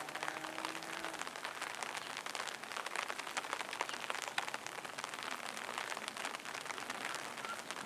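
Steady rain falling on surfaces, an even hiss of many small drop ticks.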